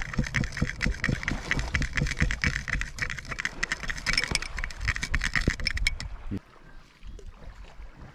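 Knife blade stirring a mustard and olive-oil sauce in a small ceramic bowl, with quick scraping and clicking of metal on ceramic; the stirring stops about six seconds in. Wind rumbles on the microphone throughout.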